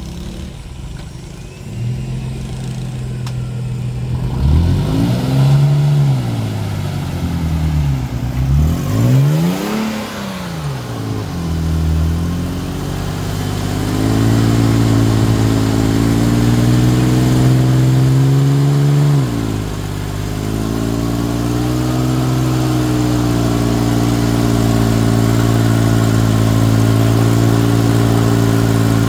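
Toyota 4Runner V6 engine revving hard under load, with the wheels spinning in deep mud during a tow-strap recovery. For the first ten seconds the revs swing up and down repeatedly; then it is held at high revs with a brief dip partway through, and cuts off at the end.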